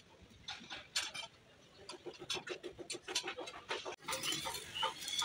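Quick, irregular clicks and taps at a moderate level, with thin high chirping tones in the last second.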